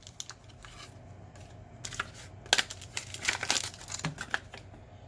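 Baseball card blister pack being pried and torn open: scattered plastic and paper crinkles and crackles, most crowded a little past the middle.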